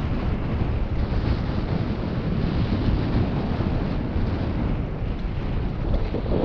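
Wind rushing over the microphone of a mountain biker riding a dirt trail: a steady low rumbling buffet with no break.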